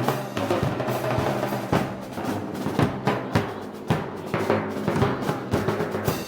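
Parade band music at a Moros y Cristianos festival: brass holding sustained notes over heavy, uneven drum strikes.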